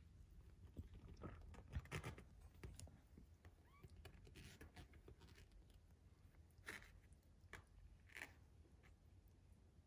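Faint rustling and scuffling of three-week-old kittens wrestling on a fleece blanket: soft, scattered bumps and brushes of paws and bodies, a little louder about two seconds in and again near the end.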